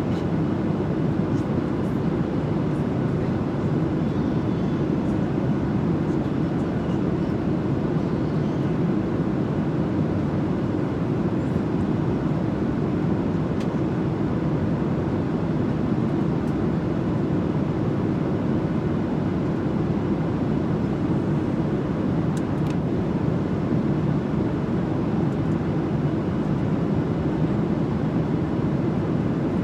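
Airliner cabin noise: a steady, low rushing drone of engines and airflow.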